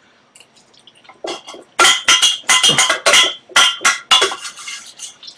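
Stainless-steel pot clattering and scraping as fingers dig macaroni and cheese out of it: a run of about a dozen sharp knocks and scrapes with a metallic ring, starting about a second in.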